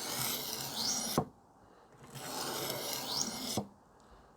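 Steel kitchen knife blade pushed across the coarse side of an aluminium oxide sharpening stone wetted with dishwashing liquid, grinding the edge bevel. Two long grinding strokes, each with a short rising squeak near its end and a sharp tick as the blade comes off the stone.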